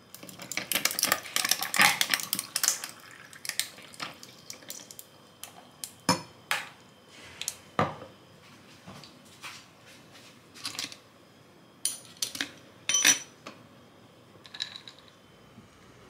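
Coffee poured from a glass pitcher over ice cubes in a tall glass, the ice crackling and clinking densely for the first few seconds. This is followed by scattered single clinks and knocks of glassware set down on a marble counter and dishes handled.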